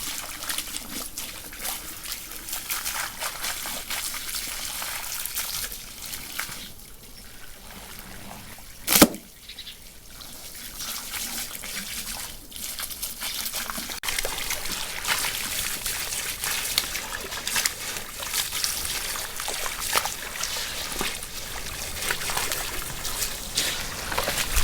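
Water trickling and splashing unevenly, with one sharp knock about nine seconds in.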